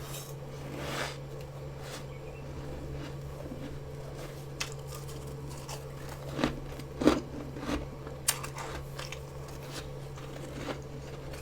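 Freezer frost, grown with a humidifier, being bitten and chewed: scattered sharp crunches, loudest in a cluster around the middle. A steady low hum runs underneath.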